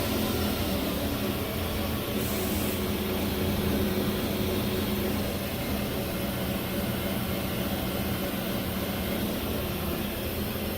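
Haas VF-9/40 CNC vertical mill running: a steady machine hum with several steady tones, a brief hiss a little over two seconds in, and a slight shift in pitch near the end.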